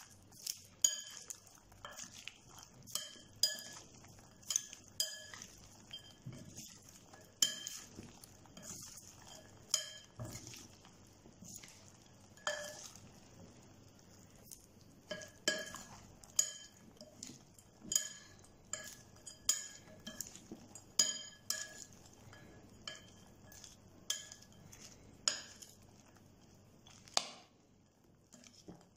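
Metal spoon clinking against a glass bowl while stirring caramel-coated popcorn: irregular sharp clinks, about one or two a second, each ringing briefly, stopping about a second before the end.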